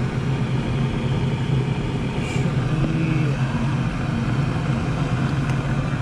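Trane gas package unit starting on a heat call: its motor runs with a steady low hum while the gas valve is not yet open, as in the draft inducer's pre-purge before ignition.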